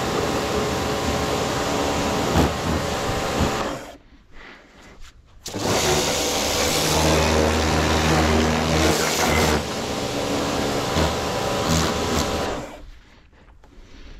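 Pressure washer running with its motor hum and spray hiss, cutting out about four seconds in, starting again a second and a half later, and stopping again near the end.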